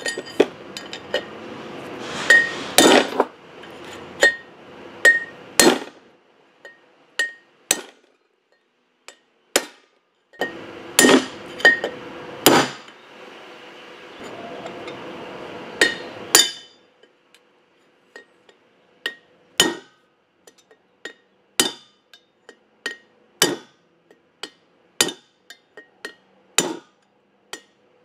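Hammer blows on a steel drift punch driving the old wheel bearing races out of a truck's front rotor hub: irregular sharp metal strikes, some in quick pairs, a few leaving a short ring.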